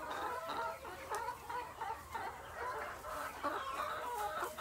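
A flock of laying hens and pullets clucking, many short calls overlapping one another.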